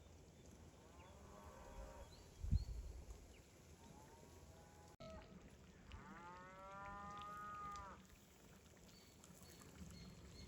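Cattle mooing in the distance: three calls, a faint one about a second in, a short one near four seconds, and a louder drawn-out moo of about two seconds starting about six seconds in. A single dull thump about two and a half seconds in.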